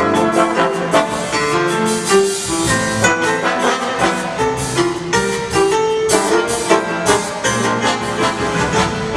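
Big band jazz played live: brass and saxophone lines over piano and drum kit, with regular drum and cymbal strikes.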